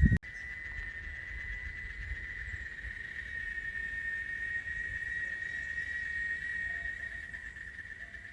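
Steady insect chorus: one continuous high trill held at the same pitch, over a low rumble. A louder low rumble cuts off abruptly just after the start, and the chorus eases slightly near the end.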